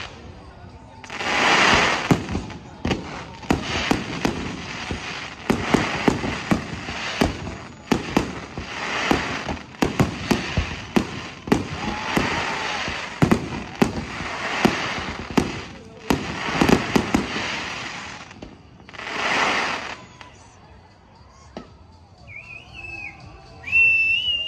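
Fireworks display: a dense run of bangs and crackling bursts for about twenty seconds, thinning out near the end.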